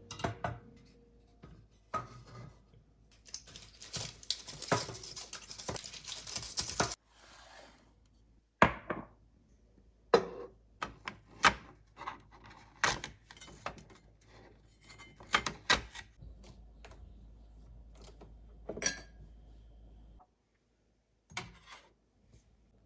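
Kitchenware handled and set down: a series of sharp clinks and knocks, with a few seconds of continuous rattling about three seconds in.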